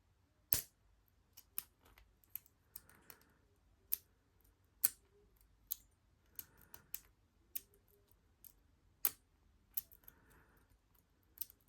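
Lock pick working the pins inside a Squire LN4 padlock: irregular sharp metallic clicks as pins are lifted and drop back, the loudest about half a second in.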